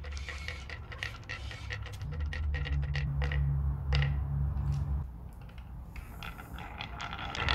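Painted wooden balls set in one at a time by hand, rolling briefly down a routed plywood groove and clicking against the queued balls and the wood, a quick irregular series of light clicks over a low steady hum.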